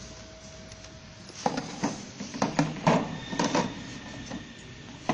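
Bottle labeling machine running with a steady hum. From about a second and a half in comes a run of irregular knocks and clacks as hollow plastic motor-oil bottles bump against each other on the output conveyor.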